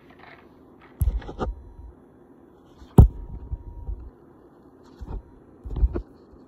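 A few dull thumps and knocks, about one, three, five and six seconds in, the one around three seconds the sharpest and loudest, over a faint steady hum.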